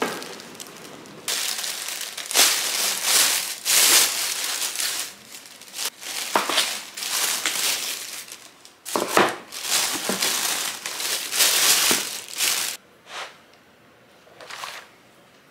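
Thin plastic carrier bag crinkling and rustling loudly as it is handled and food bowls are lifted out of it. Near the end the bag goes quiet, leaving two short, softer plastic sounds as a clear lid is taken off a salad bowl.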